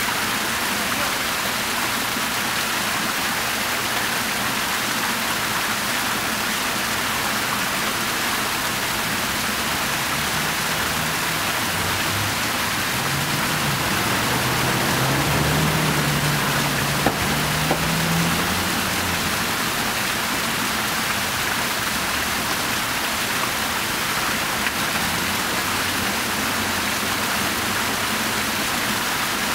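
Fountain water splashing steadily as a ring of arcing jets falls into the basin. About halfway through, a low hum swells and fades, and there is a single sharp click.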